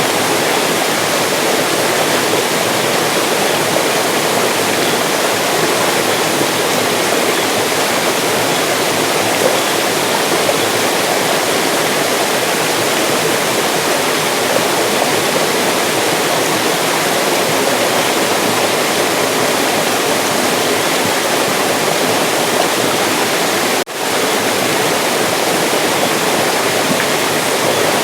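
Mountain stream flowing: a steady, even rush of water, broken once by a momentary dropout about four seconds before the end.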